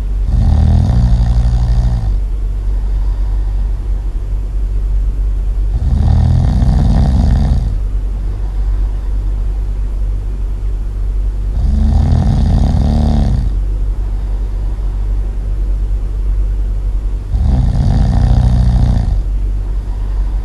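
Really loud snoring: four long snores, one about every six seconds, each with a low pitched rattle, over a steady low hum.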